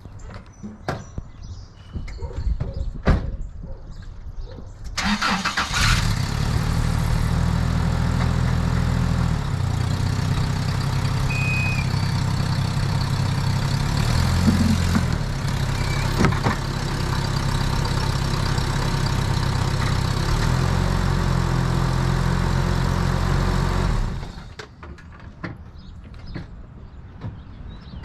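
A few knocks and clicks, then the 1995 Toyota pickup's 22RE four-cylinder engine starts about five seconds in. It runs steadily for roughly twenty seconds, with a couple of brief changes in pitch, and is switched off near the end.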